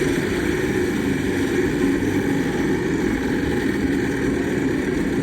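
Steady, dense din of a casino floor and a Wheel of Fortune slot machine while its bonus wheel spins.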